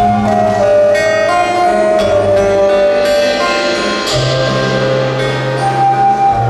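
Korean traditional-fusion ensemble music played live: a melody line moving over long held bass notes, with quick struck notes throughout.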